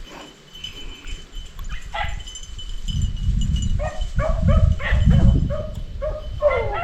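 Beagles baying in quick, repeated yelping calls as they run a rabbit's trail, starting sparse and growing to a dense run of overlapping voices from about four seconds in.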